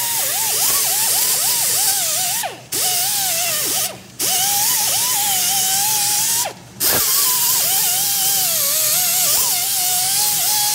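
Pneumatic air ratchet running in long trigger pulls, its motor whine wavering in pitch as it drives a socket on an extension against a bolt, over a steady hiss of air. It stops briefly three times, about two and a half, four and six and a half seconds in.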